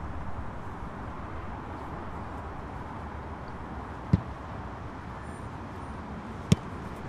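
Steady outdoor background hum on an open-air football training pitch, with two sharp thumps about four and six and a half seconds in.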